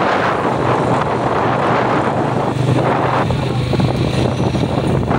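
A vehicle's engine running steadily while moving along a road, with wind and road noise rushing over the microphone.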